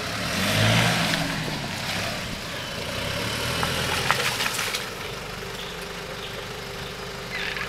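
A four-wheel drive's engine pulling under load up a rutted dirt track, loudest about a second in, then dying away after about four seconds as the vehicle moves off. A few sharp knocks and cracks come in the middle, from tyres going over rocks and sticks.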